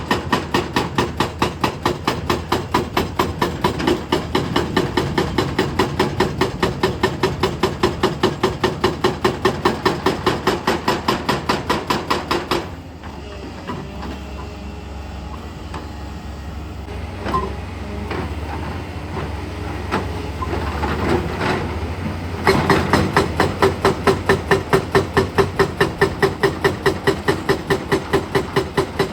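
Excavator-mounted hydraulic rock breaker hammering in a fast, even rhythm of about five blows a second over the diesel engine's steady running. The hammering stops about twelve seconds in, leaving only the engine for some ten seconds, then starts again.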